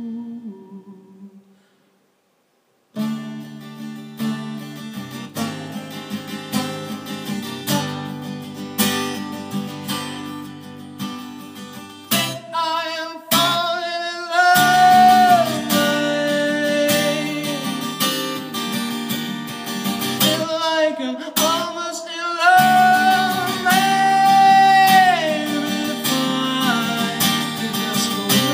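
Live acoustic guitar and a man's singing voice. After a short dead silence near the start, the guitar comes back in, and from about twelve seconds in the man sings long, held notes over it.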